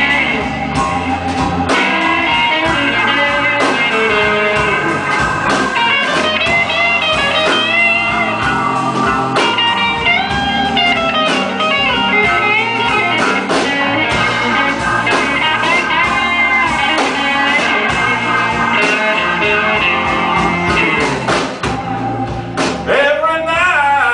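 Live blues band playing, a guitar lead line with bent notes over a steady bass line.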